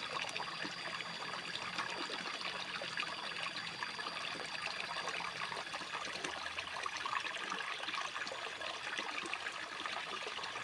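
Water trickling steadily, with no breaks.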